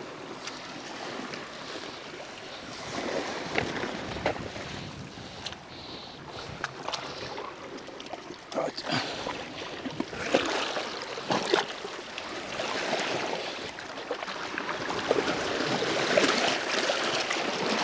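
Sea water washing and splashing over a rocky shoreline, getting louder near the end, with wind on the microphone and scattered knocks and clicks.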